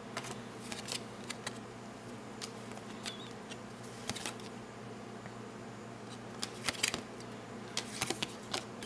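Cardboard trading cards being flipped and slid off a hand-held stack: soft, irregular clicks and snaps, more of them in the last few seconds, over a steady low hum.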